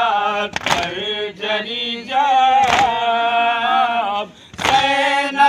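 Men chanting an Urdu noha (Shia mourning lament) together, a lead voice with others joining in long, wavering held lines. Three sharp slaps about two seconds apart keep the beat, typical of matam (chest-beating) that accompanies a noha.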